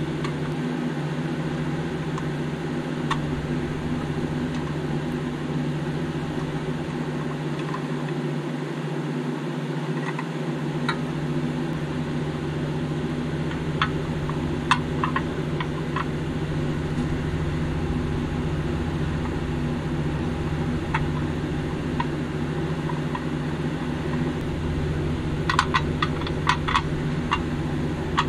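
Small metallic clicks and taps of a pressed-steel toy van body, axle and wheels being handled and fitted, with a quick run of clicks near the end as pliers work a tab over the axle. Under it a steady low hum.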